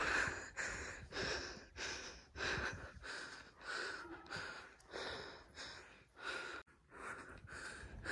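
A person breathing hard and fast close to the microphone, a quick steady rhythm of breaths in and out: winded from a steep uphill climb.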